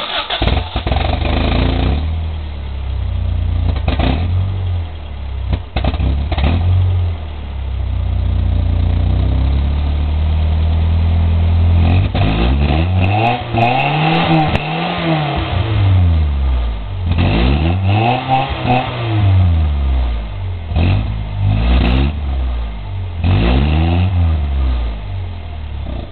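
Vehicle engine breathing through a Flowmaster muffler, idling with a deep, steady note, then revved about four times from about halfway through, each rev climbing and falling back to idle.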